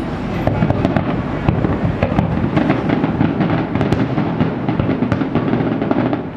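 Fireworks display: a dense, continuous barrage of bangs and crackles from many shells bursting in quick succession.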